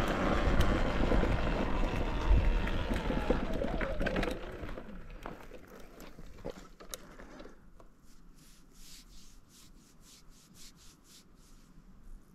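Talaria Sting electric dirt bike riding a dirt trail: the electric motor's whine rises and falls in pitch over rumbling tyre and wind noise. It fades out about four to five seconds in, leaving faint repeated high ticks.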